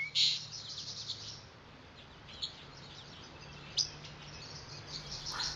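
Birds chirping and calling: a quick flurry of high chirps at the start, then scattered single chirps.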